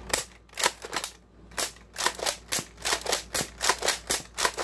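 Quick run of sharp plastic clicks and clacks from a Nerf Raider CS-35 blaster and its magazine being handled, a few a second at first and coming faster after about two seconds.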